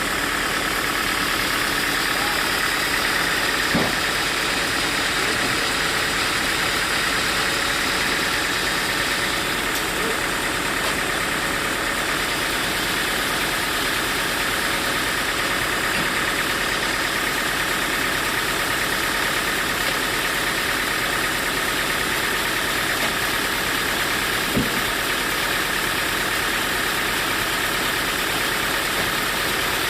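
Sawmill machinery running steadily at a constant pitch, its engine-driven saw turning without a change in load, with a sharp knock about four seconds in and another near the end.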